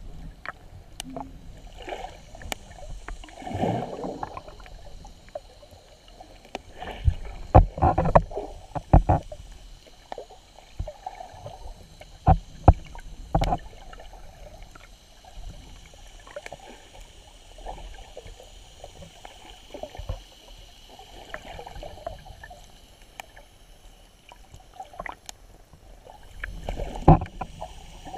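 Muffled underwater sound heard through a submerged camera: water swishing and bubbling as a snorkeler moves, with sharp knocks now and then, loudest in a cluster about eight seconds in, again around twelve to thirteen seconds, and once near the end.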